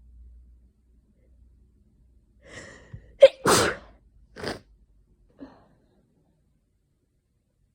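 A person sneezing in a sneezing fit. A gasping intake of breath builds about two and a half seconds in and breaks into one loud sneeze. It is followed a second later by a shorter burst of breath and then a faint short sound. The sneezer puts the fit down to either hay fever or a coming cold.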